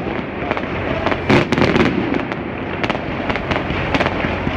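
Low-altitude fireworks going off in a dense volley: many sharp reports over continuous crackling, with a tight cluster of bangs a little over a second in. The powerful reports ring between the surrounding buildings.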